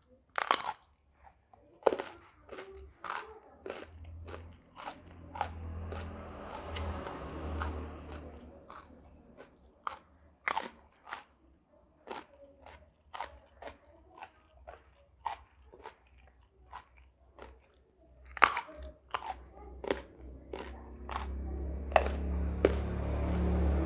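Close-miked crunchy chewing of raw vegetables: sharp crunching bites, about one or two a second, with stretches of denser, wetter chewing a few seconds in and again near the end.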